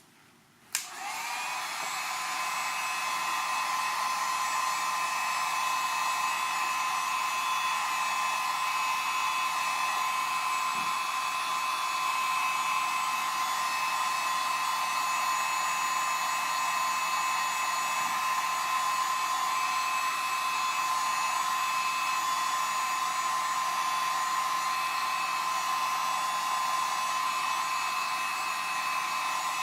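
Heat gun switched on less than a second in, its whine rising briefly as it spins up and then running steadily.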